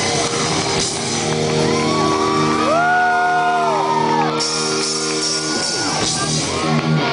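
Live rock band playing loud, a sustained distorted chord held over the drums for several seconds before the band moves on, with high shouts and whoops rising and falling above it.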